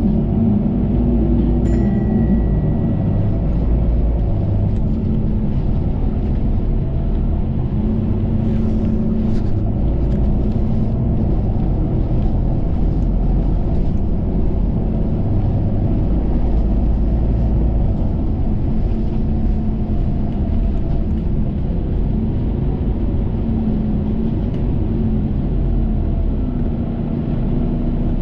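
Steady engine and road rumble heard from inside a moving KMB bus, the engine note coming and going as the bus pulls along.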